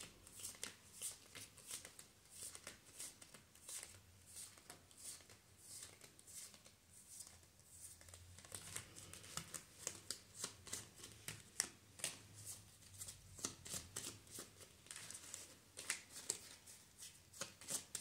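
Tarot cards being shuffled by hand: a faint, continuous run of quick soft flicks and snaps of the card edges.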